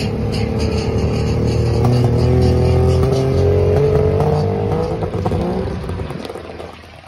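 Engine of a 1950s sports racing car revving hard as the car accelerates away, its note rising slightly, then fading as it drives off over the last second or two.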